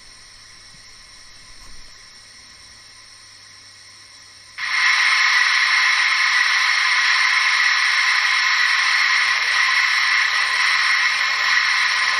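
Simulated steam hiss from the ESU LokSound 5 sound decoder in a Gauge 1 brass model of a Bavarian D XII steam locomotive. After a faint hiss, a loud steady hiss of steam sets in abruptly about four and a half seconds in and keeps going.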